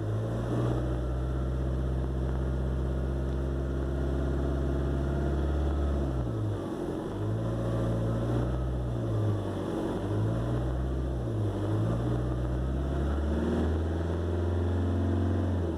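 Ford Transit 2.2 diesel engine running, heard from the cab, with the turbocharger whistle that a rebuild has not cured; the owner puts it down to imbalance. The engine note dips and rises a few times partway through.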